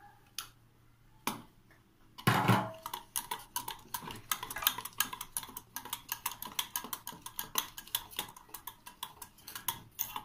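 Wire whisk beating batter in a stainless-steel bowl, its wires clicking fast against the metal sides, about five clicks a second. There is a louder clatter about two seconds in.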